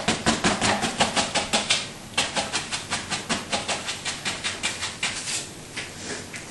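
Paintbrush dabbing rapidly against a canvas, a quick, even run of taps several a second that grows fainter after about two seconds and stops near the end: stippling foliage onto a landscape painting.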